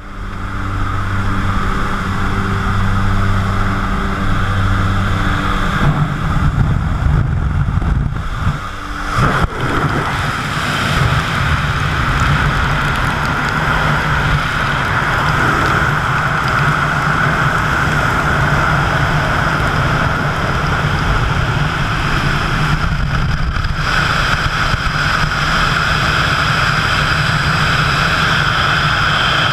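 Jump plane's engine drones with a steady low hum. After an uneven stretch of gusting noise around eight to ten seconds in, a steady loud rush of wind over the microphone takes over in wingsuit freefall.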